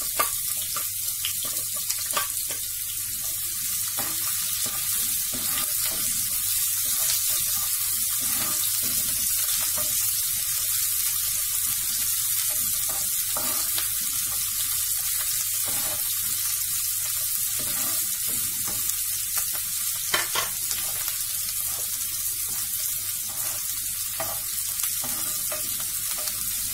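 Diced red onion, just added to hot oil, sizzling in a frying pan as a steady high hiss. Now and then a spatula stirring it gives a short scrape or tap, the sharpest about twenty seconds in.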